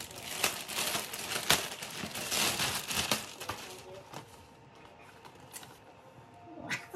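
Plastic packaging and cardboard boxes being handled, crinkling and rustling with small knocks. The sound is busiest in the first three seconds and dies down after about four seconds.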